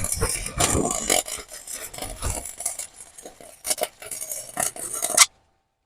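Irregular metal scraping and clinking, cutting off abruptly a little past five seconds in.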